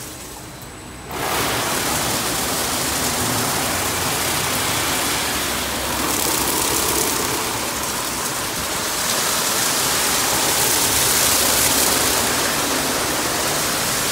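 Spinning brushes of a Washworld Profile MAX automatic car wash scrubbing the car while water sprays over it: a steady rushing wash of noise that starts suddenly about a second in and swells a little near the end.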